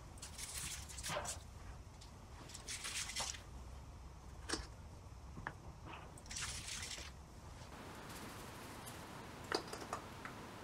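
Salt and ground coriander being sprinkled over raw meat and vegetables in a steel pot: several short hissing pours of dry granules, with a few light clicks.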